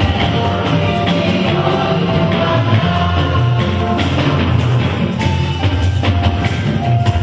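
Loud live music from the hymn being sung in the service, with a heavy bass and drums.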